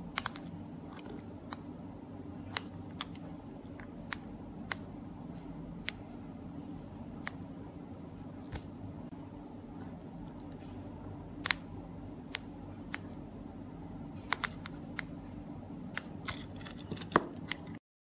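Sharp plastic clicks of buttons being pressed on two 433MHz key-fob remotes, irregular and bunched together near the end, while the cloning remote copies the original's codes. A steady low hum runs underneath, and the sound cuts off abruptly just before the end.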